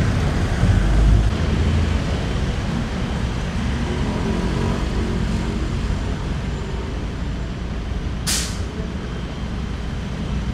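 Wind rushing over the microphone with road and traffic noise while riding a quiet electric motorcycle, and a short sharp hiss about eight seconds in.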